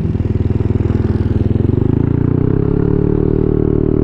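Motorcycle engine running under way, its pitch rising about a second and a half in as it accelerates, then holding steady.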